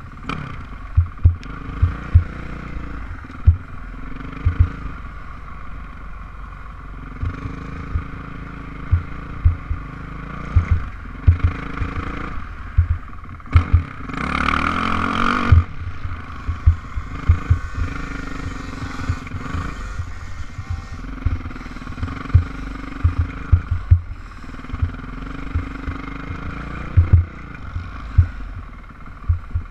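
Motocross dirt bike engine running at speed, its pitch rising and falling with the throttle, with frequent short low thumps. About halfway through there is a loud burst of hiss lasting a second or two.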